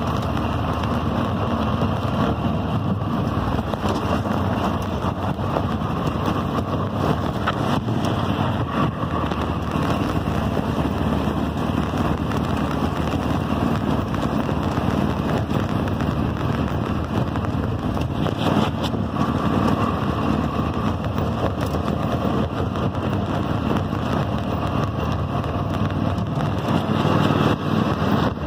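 Toro riding lawn mower's 22-horsepower Kohler 7000 series engine running steadily under way.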